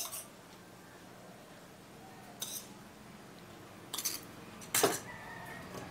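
A spoon clinking against metal cookware while turmeric powder is tipped into an aluminium pressure cooker: a light clink about two seconds in, then two sharper knocks near the four- and five-second marks, the last ringing briefly.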